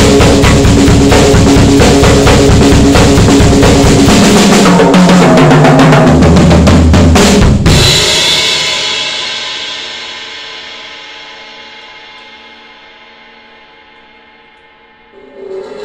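Sound Percussion Labs acoustic drum kit with Soultone cymbals played in a fast, dense solo across drums and cymbals. Then comes a fill stepping down in pitch through the toms to the floor tom, ending on a final hit about seven and a half seconds in. The struck cymbals ring on and fade slowly for several seconds, and soft playing starts again just before the end.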